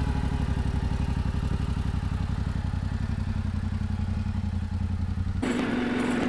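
Yamaha Ténéré 700's parallel-twin engine running at low revs just after starting, with an even low pulse, as the bike moves off. About five seconds in, the sound switches to the engine heard from on board while riding, a steadier hum.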